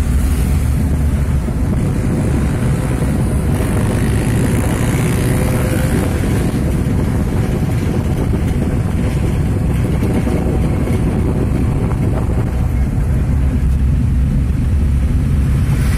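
Steady low rumble of a moving vehicle: engine and road noise while travelling along a street.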